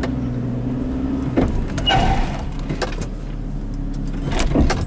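The engine of a 2002 Chevrolet TrailBlazer, a 4.2-litre inline-six, running at low speed as the SUV reverses, heard from inside the cabin. A short rushing noise comes about two seconds in, and there are a few brief knocks.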